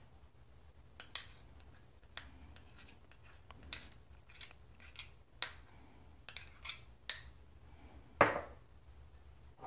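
Metal spoon clinking against a small glass bowl and the rim of a stainless steel mixer jar while honey is scraped into the jar: about a dozen short, sharp clinks at uneven intervals, the loudest about eight seconds in.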